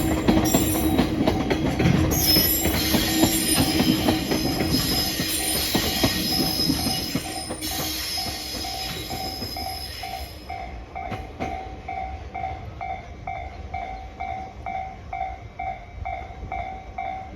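Freight wagons rolling over a level crossing, wheels clattering with a steady squeal, the noise dying away about eight to ten seconds in. Throughout, the crossing's warning bell rings in a regular fast ding-ding, and it is left ringing alone after the train has gone.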